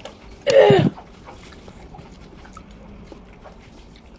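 A short, loud vocal sound from the eater about half a second in, followed by faint clicks and small sounds of eating by hand from a plate.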